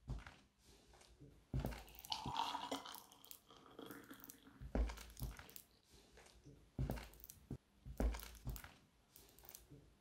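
Hard-soled leather dress shoes stepping on a wooden parquet floor: separate heavy footfalls a second or two apart, with fainter scraping and crackling between them.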